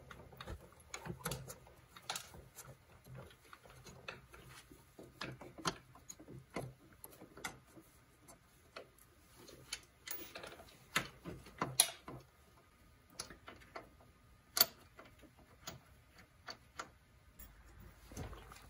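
Faint, irregular light clicks and metallic taps from hand tools and brake caliper parts being handled while a snowmobile brake caliper is fitted over its rotor, with a few sharper clicks around the middle.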